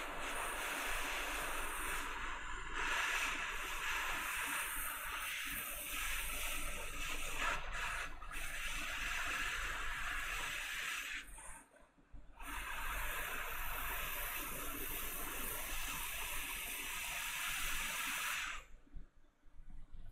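Hot air rework station blowing a steady hiss of air onto a chip's reballing stencil, melting the solder paste into solder balls. The airflow stops briefly about twelve seconds in, starts again, and cuts off near the end.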